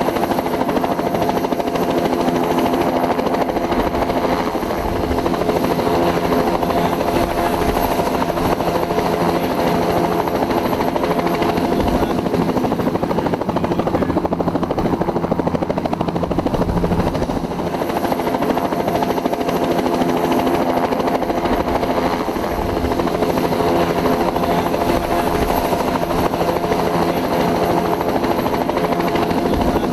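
Bell 206 helicopter running steadily: the whine of its turboshaft engine over rotor noise, holding a constant level with only slight brief dips.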